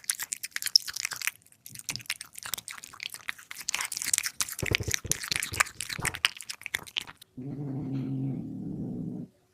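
A cat eating, with quick crisp crunching and clicking sounds of chewing for most of the time, then a steady low growl for about two seconds near the end.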